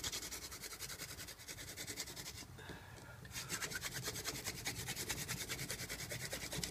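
Mullein spindle of a hand drill spun between the palms, grinding in its notch in an incense cedar hearth board: a fast, rhythmic dry scraping. The drilling breaks off briefly about two and a half seconds in, then starts again.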